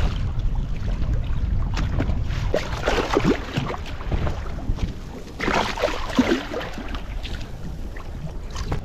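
Wind buffeting the microphone over a steady low rumble, with water splashing and sloshing against the boat's hull as a hooked pink snapper thrashes at the surface and is lifted out. The splashing comes in two louder spells, about three seconds in and again about five and a half seconds in.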